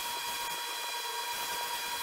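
Workshop machinery running steadily: an even hum and hiss with a steady high whine.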